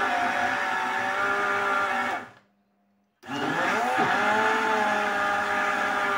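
Countertop electric blender running, blending sliced banana and egg into pancake batter. It stops about two seconds in and is switched on again about a second later, its motor whine climbing as it spins up before settling into a steady run.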